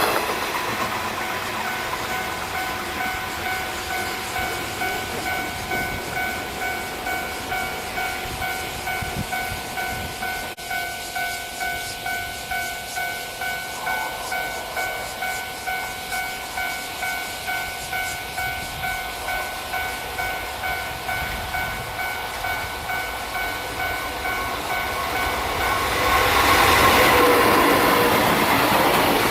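Japanese railway level-crossing alarm ringing, a repeated electronic ding pulsing steadily. A train runs past at the start, and another train passes loudly from a little before the end.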